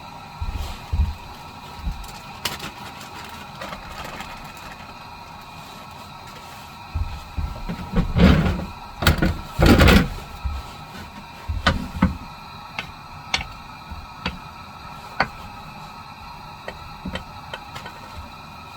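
Scattered clicks and knocks of objects being handled, with a burst of louder thumps and rustling about eight to ten seconds in, over a faint steady hum.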